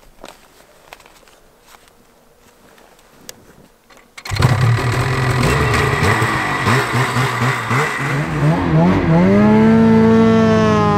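BRP Ski-Doo Summit 850X's two-stroke twin engine starting about four seconds in, running, then revving up near the end and levelling off. It will only rev to a little over 6,000 rpm, because the cheap aftermarket CVT belt is the wrong size.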